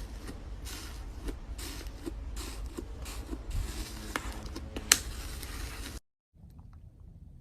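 Slime being squished and pressed by hand: a run of repeated squishing sounds with one sharp crackle near the middle, then a sudden cut to a much quieter stretch of faint clicks.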